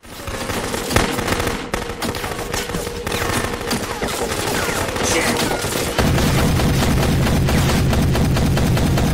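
Sustained rapid automatic gunfire, dense overlapping shots in an action film's battle. About six seconds in, a heavier, deeper, steady rumble joins and everything gets louder.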